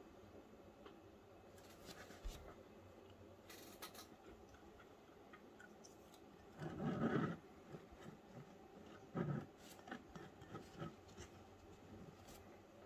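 Faint handling sounds as a tea bag is dunked by its string in a glass tumbler of tea and the glass is picked up: soft rustles and light clicks, with two louder muffled bumps about halfway through and a couple of seconds later.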